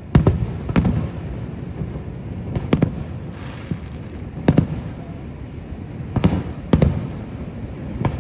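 Fireworks bursting, about six sharp booms at uneven intervals, two of them close together near the end, over a steady low rumble.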